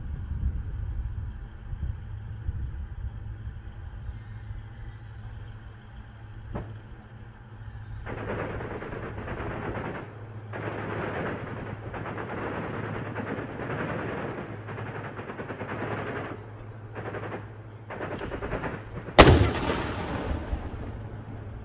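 A tracked armored vehicle's engine running steadily. From about eight seconds in, long bursts of rapid automatic gunfire, ending in one loud blast near the end that rings out and dies away.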